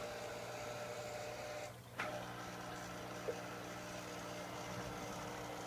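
Marineland Penguin BioWheel 350 hang-on-back aquarium filter running: a steady, loud motor hum over a hiss, which dips briefly with a click about two seconds in.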